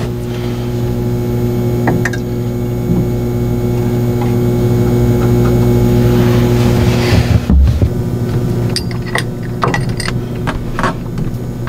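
Steady low machinery hum in a boat's engine compartment. In the second half come several sharp metallic clicks and clinks as the sea-strainer parts and fittings are handled and refitted.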